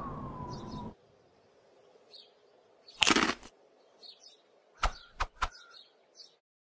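Faint birds chirping now and then over a quiet background. About three seconds in there is a short noisy burst, the loudest sound, and about two seconds later three quick sharp clicks.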